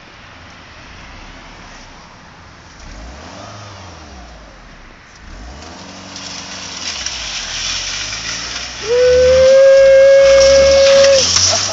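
A front-wheel-drive Volkswagen saloon's engine revving up and down several times, then its tyres squealing in one loud, steady screech of about two and a half seconds as the car is slid, with shorter wavering squeals just after.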